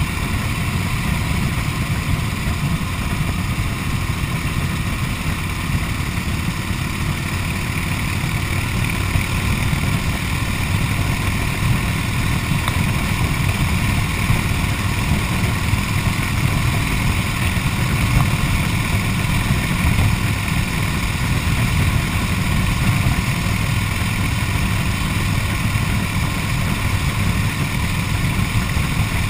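1929 Harley-Davidson JDH Two Cam's F-head V-twin running steadily under way, heard from the rider's seat. The old engine is running well.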